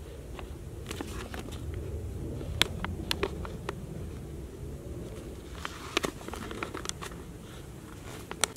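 Pencil tapping and clicking on a paper map, with the map crinkling under the hands, as a pencil marked at one mile is stepped along a route to measure distance. There are scattered sharp ticks, a few louder ones about two and a half seconds in, around six seconds and near the end, over a low steady rumble.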